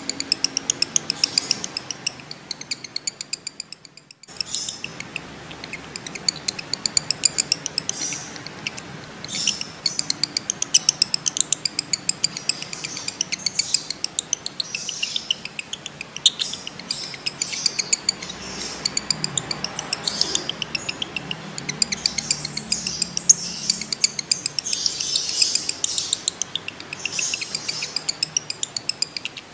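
Male lovebird in breeding condition chattering in long, rapid trills of sharp, high-pitched repeated notes, with a short break about four seconds in.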